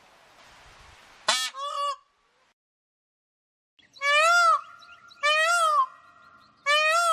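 A bird giving loud honking calls: a quick pair, then after a pause of about two seconds three longer, evenly spaced honks, each rising and falling in pitch.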